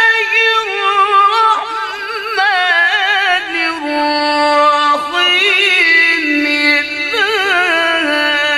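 A male Quran reciter (qari) reciting in melodic, sung style with his hand cupped to his ear. He holds long, high notes without a break for breath, ornamented with fast wavering trills. The pitch steps down about a third of the way in and climbs again past the middle.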